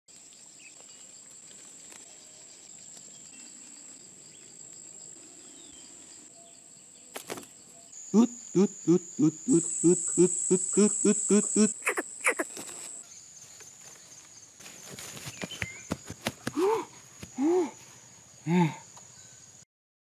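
Greater coucal's deep hooting call: a fast, even series of low 'coop-coop-coop' notes at about three a second, then three single drawn-out calls near the end. A steady high insect drone runs underneath, and there are a few clicks of handling.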